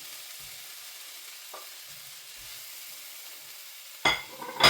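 Garlic, ginger, chilli and ground curry spices sizzling steadily in oil in a pan. There is a light click about a second and a half in, then two loud, sharp knocks near the end.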